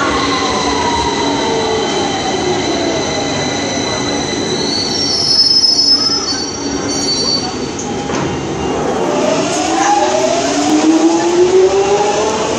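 London Underground trains on the platform: a train's motor whine falls in pitch as it slows, with high-pitched wheel squeal in the middle. About two-thirds of the way in, a Jubilee Line train pulls away, its traction motor whine rising in pitch as it accelerates.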